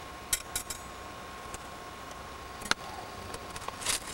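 Engine oil dipstick being handled at the engine: a few light metallic clicks and taps, another click later and a short rustle near the end, over a faint steady hum.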